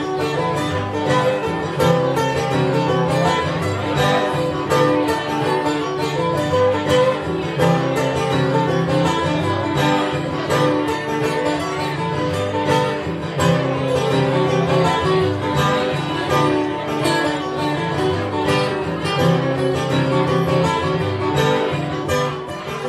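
Steel-string acoustic guitar played solo, with steady rhythmic strumming and picking of chords.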